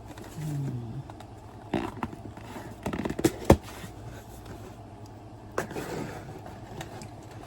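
Cardboard packaging being opened and handled: scraping and rustling with scattered clicks, and one sharp click, the loudest sound, about three and a half seconds in.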